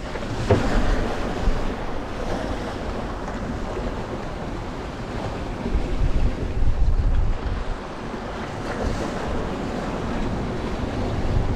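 Strong wind buffeting the microphone over water rushing along a sailboat's hull: a steady rush of noise with a deep rumble, swelling in gusts about six to seven seconds in.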